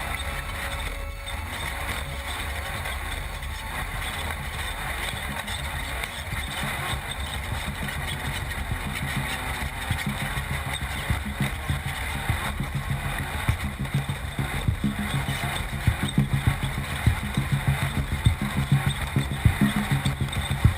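Class 12 off-road race car running with a steady low rumble. A music beat comes up over it in the second half, growing stronger toward the end.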